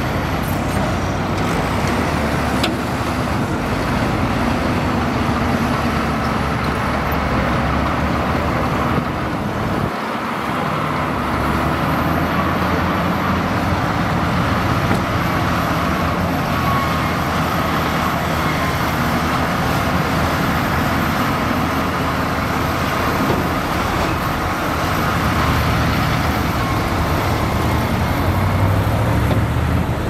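Komatsu crawler bulldozer's diesel engine working steadily as the dozer pushes soil, with a short dip in the low rumble about ten seconds in.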